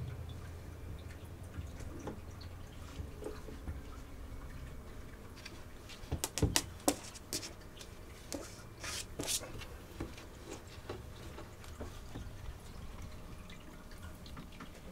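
Scattered light taps, knocks and scrapes of cats' paws and claws moving on wooden shelves, with a cluster of sharp knocks about six seconds in and a few brief scratchy noises about nine seconds in.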